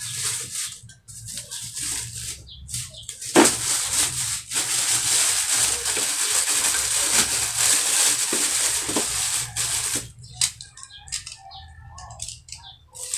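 Clear plastic wrap crinkling and rustling as it is pulled off a motorcycle helmet's visor, heaviest from about three seconds in until about ten seconds, with lighter rustles before and after. A low steady hum runs underneath.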